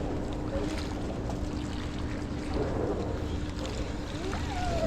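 Wind and water noise around a small fishing boat, with a steady hum that fades out about three seconds in. Faint voices come in near the end.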